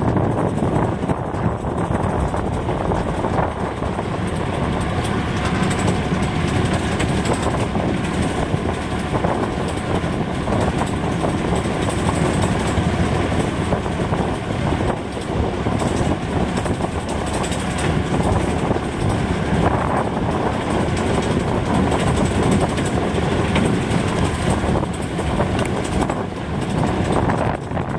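Malcolm Moore narrow-gauge locomotive running down the line, heard from on board: a steady engine and running noise with no marked changes.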